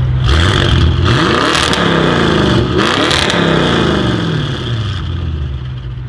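Audi RS6 Avant twin-turbo 4.0-litre V8 revved hard from idle: engine pitch climbs and falls twice, with short sharp bursts of noise at the peaks, then settles back to a steady idle about five seconds in.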